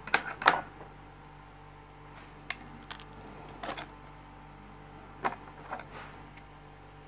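Handling noises on a tabletop cutting mat: scattered sharp clicks and taps as scissors and a 9-volt battery are set down and wires are moved about, the loudest cluster right at the start. A faint steady hum runs underneath.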